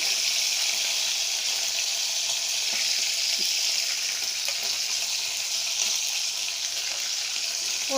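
Chicken pieces, boiled beforehand, frying in hot oil in a pan over a low flame: a steady sizzling hiss.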